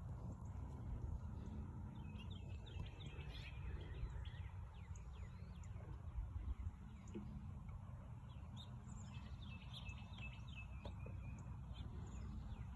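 Birds chirping in quick series of short falling notes, in two spells, one about two seconds in and one near three-quarters through, over a steady low background rumble.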